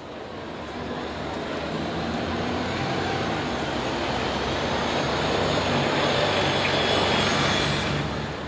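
City bus driving past on the street, its engine and tyre noise growing louder and then dropping away near the end.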